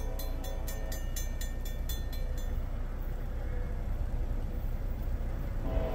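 Railroad crossing bell ringing rapidly, about five strikes a second, over a low steady rumble; the bell fades out about two and a half seconds in.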